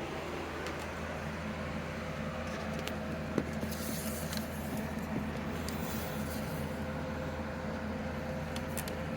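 Steady electrical hum under a hiss of radio static, with a few faint clicks. There is a sharper click about three seconds in and a stretch of crackle from about four to six seconds in.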